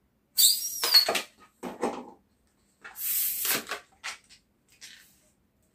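Air hissing out of the neck of a latex twisting balloon, letting the excess out of an overinflated balloon. It comes in two bursts, about half a second in with a short falling squeal, and again about three seconds in. Between and after them comes the squeak of the rubber being rubbed and handled.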